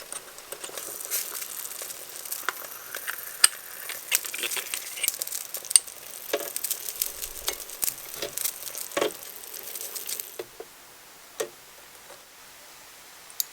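Food sizzling in miniature cookware, with light crackles and small utensil clicks. The sizzle stops about ten seconds in, leaving a few isolated clicks.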